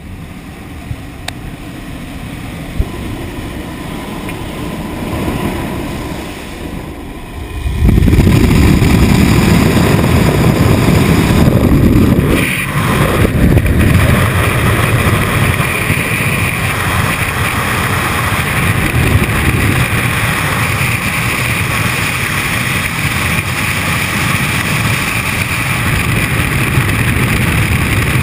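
Engine and slipstream noise inside a PAC 750XL jump plane, then about 8 s in a sudden loud, steady wind rush on the helmet camera as the skydiver exits into freefall, lasting to the end.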